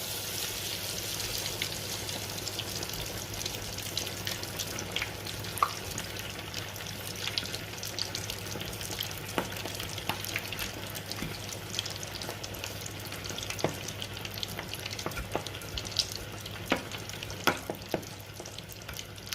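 Breadcrumb-coated chicken drumsticks deep-frying in hot oil over medium heat: a steady sizzle with frequent scattered crackling pops. A low steady hum runs underneath.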